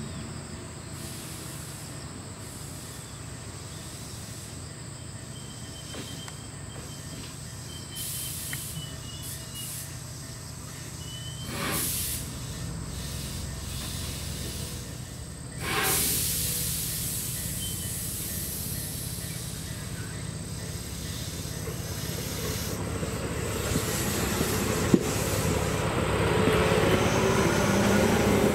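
Tobu 8000 series electric train at a station: a steady low hum with a few short hisses of compressed air, then the train pulling away and drawing closer, its running noise growing steadily louder.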